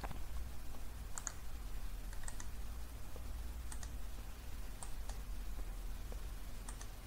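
Computer mouse button clicks, a few sparse single and double clicks, over a low steady hum.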